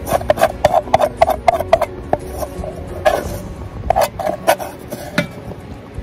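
Spoon scraping and clinking against the inside of a metal camping pot, scooping up rice and meat: a quick run of strokes for about two seconds, then a few more scrapes in the second half.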